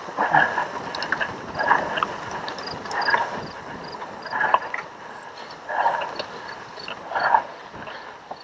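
A cyclocross racer's hard, rhythmic breathing on an uphill climb, about one breath every second and a half, over the rough rolling noise of the bike's tyres on grass.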